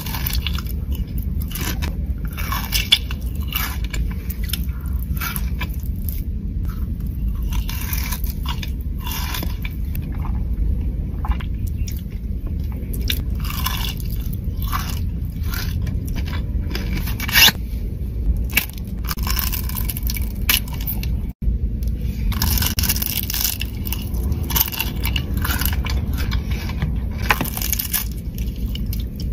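Close-miked bites and chewing of Dubai-style filled chocolate bars: repeated crisp crunches as the chocolate shell and the crunchy pistachio-kataifi filling break between the teeth, over a steady low hum.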